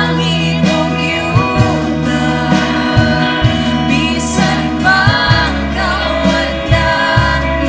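Praise and worship music: voices singing a song over instrumental accompaniment with a steady beat.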